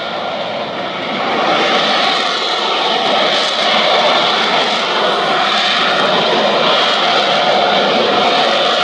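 Jet engine noise from an F-35B Lightning II's single turbofan flying overhead: a loud, steady rushing noise that swells about a second and a half in and then holds.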